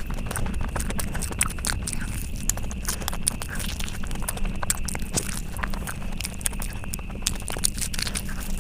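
Close-miked chewing and wet mouth sounds of someone eating, an irregular run of sharp clicks and smacks over a low steady hum.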